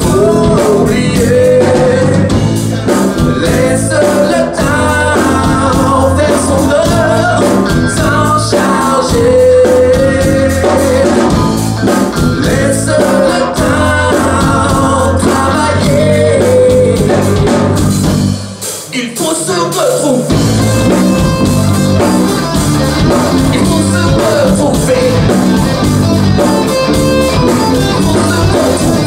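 Live rock-fusion band with a male lead singer, electric guitars, bass guitar and drum kit, heard through a camcorder's built-in microphone. About two-thirds of the way through, the bass and drums drop out for a second or so, then the full band comes back in.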